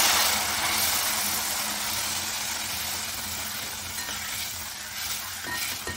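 Boiling water poured into semolina roasting in hot ghee, setting off a loud hissing sizzle that starts all at once and slowly dies down as the ladle stirs.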